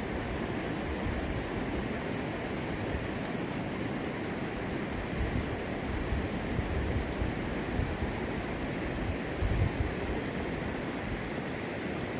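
Mountain stream rushing steadily over rocks. A few short low rumbles of wind on the microphone, the strongest about nine seconds in.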